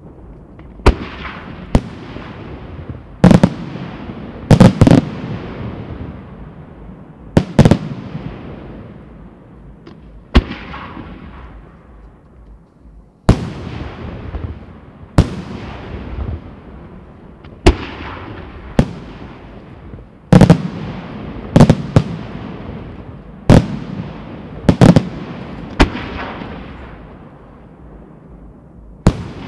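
Aerial firework shells bursting: about twenty sharp bangs, some in quick pairs or threes, every one to three seconds. Each is followed by a rumbling echo that fades away.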